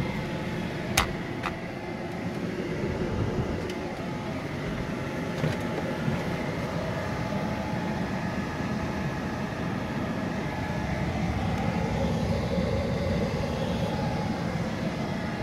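Volvo FH500's 13-litre straight-six diesel idling steadily, heard from inside the cab, with two light knocks about a second in.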